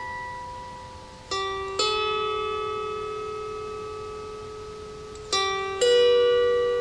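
Harp played slowly: pairs of plucked notes, one pair about a second in and another about five seconds in, each left to ring and fade.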